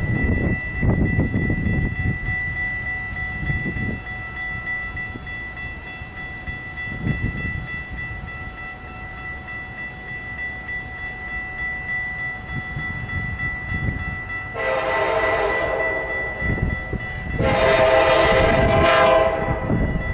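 Metra train's air horn sounding two blasts of about two seconds each, the second the louder, over the rumble of a train. A steady high whine runs underneath.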